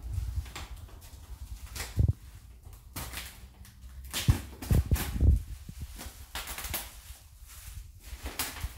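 Plastic wrap and bubble wrap rustling and crinkling as a cardboard parcel is cut open with scissors, with a few dull thumps of the parcel being handled on the floor about two seconds in and again around four to five seconds in.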